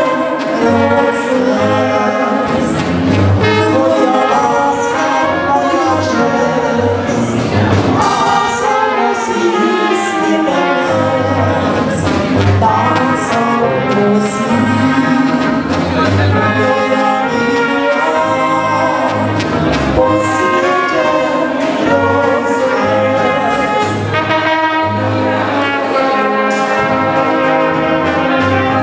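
Brass band playing a folk dance tune, with trumpets and trombones over a steady pulsing bass beat.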